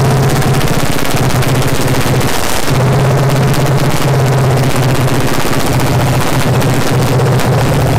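Freshly rebuilt 5.3-litre LS V8 (2005 L59), carbureted with a Holley 750 double pumper, running steadily on its first start-up. It fires in a rapid, even pulse with a brief dip about two and a half seconds in.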